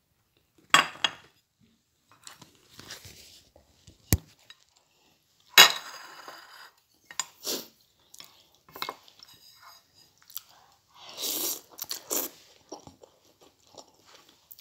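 Close-up eating sounds: chewing, with sharp clinks of dishes and chopsticks, the loudest about a second in and just past the middle.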